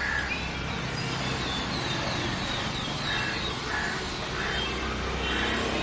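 Crows cawing every second or so, with small birds chirping higher up, over a steady low rumble.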